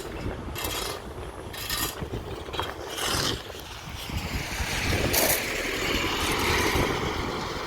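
Vehicle running on a rough road: a steady low rumble, broken every second or two by short rattling, hissing bursts.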